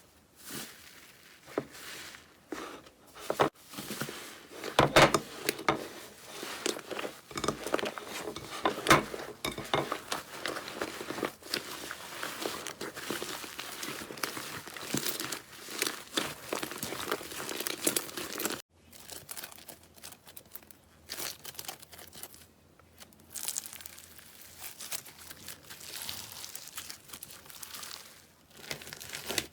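Slime being squeezed and pulled apart by hand, making dense crinkling, crackling and popping sounds. About two-thirds through it stops abruptly, then starts again more quietly.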